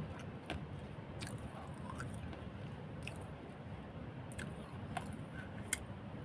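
A person chewing soft idli with sambar, close to the microphone, with wet mouth clicks and smacks about once a second at irregular intervals.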